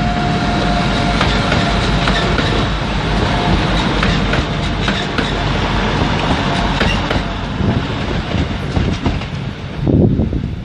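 Train running past on the station tracks, its wheels clicking over rail joints and points with a steady rumble.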